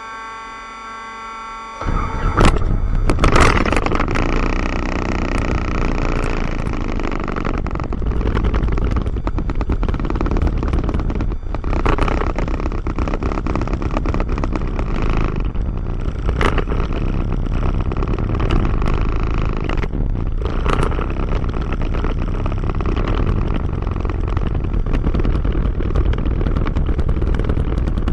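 Diamond DA20-C1's four-cylinder Continental IO-240 engine starting about two seconds in, catching unevenly for a second or so, then running steadily at idle with the propeller turning.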